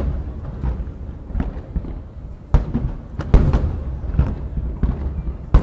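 Aerial firework shells bursting: sharp booms about two and a half seconds in, another a moment later, and one near the end, over a steady low rumble.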